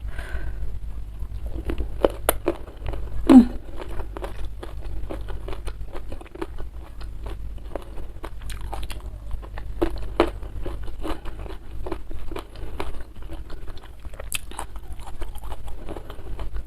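Close-miked mouth sounds of biting and chewing crunchy fried catfish: irregular crisp crunches and wet chewing, with one louder short sound that falls in pitch about three and a half seconds in.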